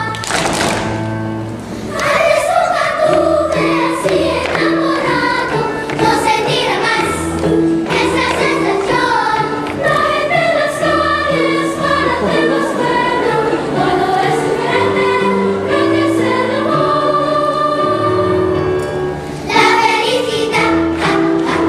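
Girls' school glee club singing together over an instrumental accompaniment with a steady bass line.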